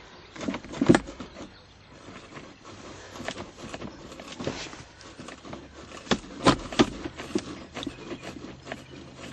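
Irregular knocks and clicks of a car's plastic center console and trim being handled and worked loose, loudest about a second in and twice near seven seconds.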